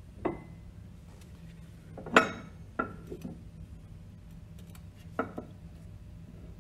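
Metal parts clinking and knocking against each other as the shaft seal is taken off the Grundfos NBS pump's shaft: about five light clinks, the loudest about two seconds in with a short ring, over a faint low hum.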